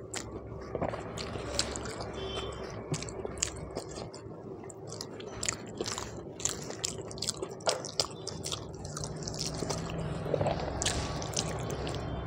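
Close-miked chewing of rice and mutton curry eaten by hand: wet mouth clicks and smacks coming irregularly and often, with moist squishing as fingers work the rice.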